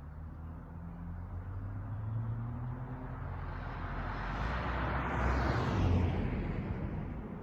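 Exhaust of a Dodge Charger SXT's V6 through a Flowmaster Outlaw system, running with a low drone at slow speed. Together with road noise it grows louder, is loudest about five to six seconds in, then fades.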